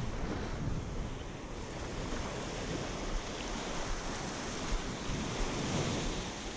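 Small surf breaking and washing up a sandy beach in a steady wash, with wind buffeting the microphone in a low rumble.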